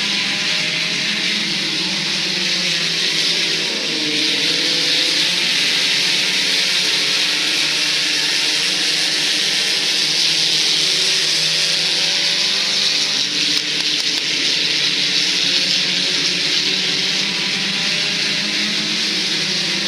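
Several IMCA sport compact race cars' four-cylinder engines running at speed, their pitch rising and falling as the cars accelerate and pass, over a steady hiss.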